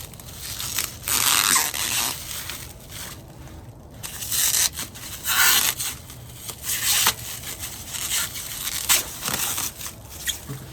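Plastic bubble wrap being pulled off and unwrapped from a bottle, crinkling and rustling in irregular bursts.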